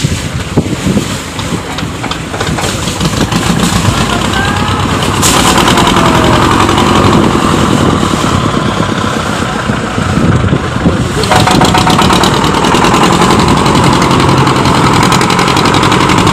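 Fishing boat's engine running steadily, with wind and rushing water. The sound changes abruptly twice, about five and about eleven seconds in.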